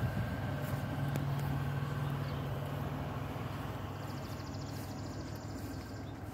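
Steady low hum of a running car engine, easing off slowly.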